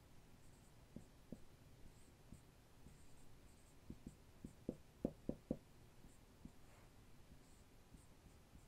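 Dry-erase marker writing on a whiteboard: faint squeaks and light taps of the tip on the board, with a quick run of taps about four to five seconds in.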